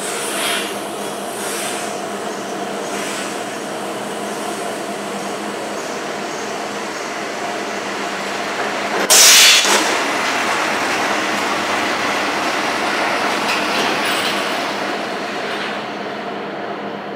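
Rebar cutting machine running steadily as 22 mm steel bars are fed into it, with one loud, sharp metallic crunch about nine seconds in as its blade shears through a bar. Lighter clanks of the steel bars come in the first few seconds.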